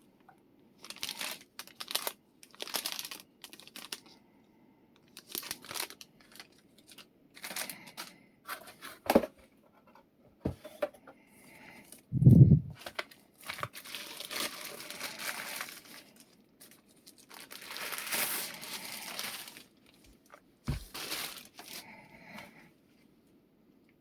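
Packaging being unwrapped: plastic and paper crinkling and tearing in irregular bursts. There are two dull thumps, one about twelve seconds in and a smaller one near twenty-one seconds.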